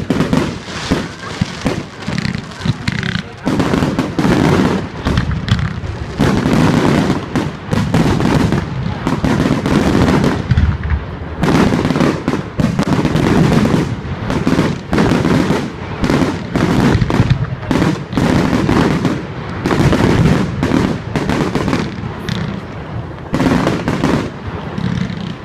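Firework display: a dense barrage of bangs following one another several times a second, with hardly a pause.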